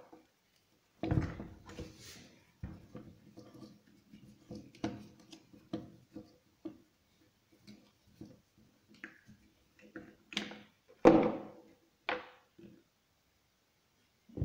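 Scattered clicks and knocks of plastic and metal parts being handled as a Husqvarna 236 chainsaw's recoil starter is taken apart with a hex key. The starter pulley and recoil spring are being lifted out. The loudest knocks come about a second in and about eleven seconds in.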